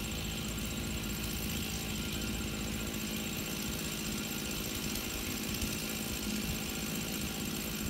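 An engine running steadily at an unchanging pitch, a constant mechanical hum.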